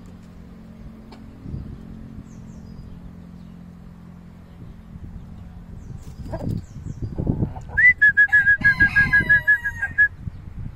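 A chicken calling loudly near the end: a call that rises at first, then goes on as a fast run of short, even pulses for about two seconds. Faint chirps of small wild birds come before it.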